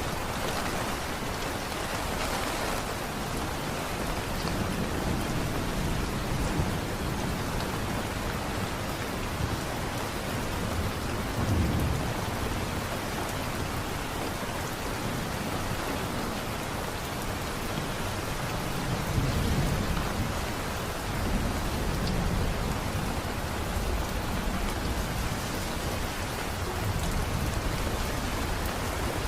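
Steady heavy rain falling, with low rolls of distant thunder swelling up several times, the loudest about twelve and twenty seconds in.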